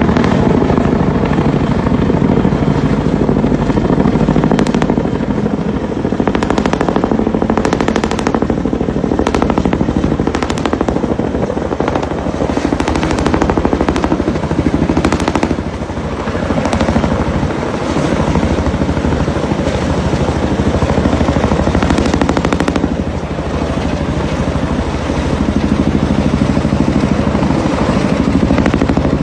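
A small helicopter-type craft's engine and rotor running loudly, with a fast, steady rattling chop throughout.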